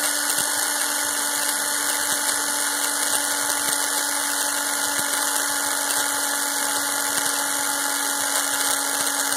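Power drill running steadily with a continuous whine, spinning a 26-gauge core wire in its chuck as 32-gauge wrap wire is wound around it into Clapton coil wire.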